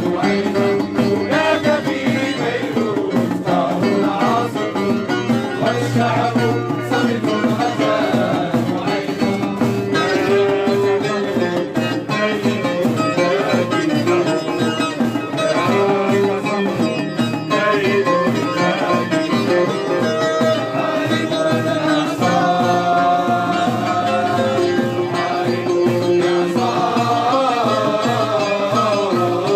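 Loud traditional folk music, hand drums and melodic instruments playing together without a break, the melody lines wavering and bending.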